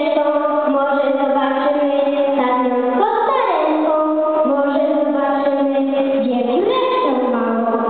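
A slow song sung by high voices, long held notes that slide into the next note every few seconds.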